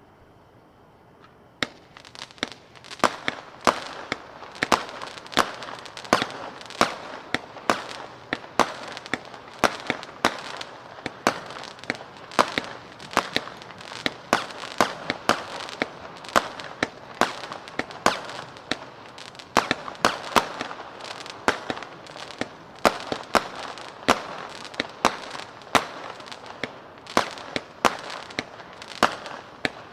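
A consumer firework cake, Spirit of '76 MS496 Wildcard (49 shots), firing a rapid string of sharp bangs at about two a second. It begins about two seconds in.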